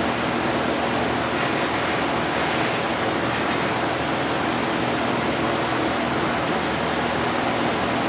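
Steady, loud rushing hiss of air with a faint low machine hum under it, unbroken throughout.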